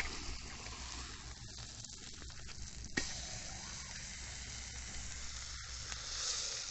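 Stingray sizzling in hot coconut oil on a small iron tawa over a wood fire, with a steady frying hiss as it is flipped and pressed with a metal spatula. A single sharp click about three seconds in.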